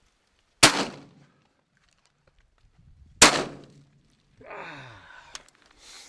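Two shotgun shots about two and a half seconds apart, each with a short ringing tail, fired at passing doves in a try for a double. A voice follows softly near the end.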